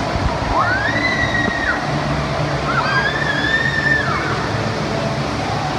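Steady rush of splashing water, with two long high-pitched voice calls, one about a second in and one about three seconds in, each rising, held, then dropping away.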